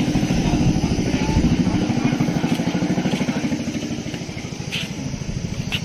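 A small engine running with a rapid, even beat, slowly getting quieter over the last couple of seconds.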